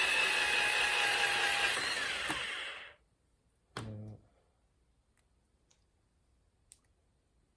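A small electric power-tool motor running at speed with a steady whine, switched off about three seconds in, its pitch falling as it winds down. A short low thud follows about a second later, then a few faint light clicks.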